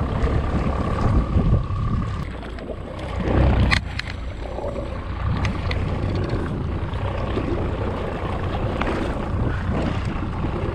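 Wind buffeting the microphone over open water and waves around a small boat, with a steady low rumble; a thin steady tone dies away about two seconds in, and a sharp knock comes just under four seconds in.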